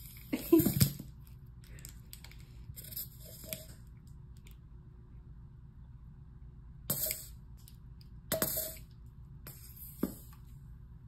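Plastic squeeze bottle of honey being squeezed, giving several short hissing squirts of air and honey a few seconds apart, the loudest about half a second in; it is too noisy.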